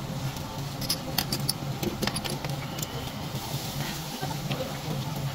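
Beef tripe and intestines sizzling on a wire-mesh grill over charcoal, with metal tongs clicking against the grate several times about one to two seconds in as the pieces are turned. A steady low hum runs underneath.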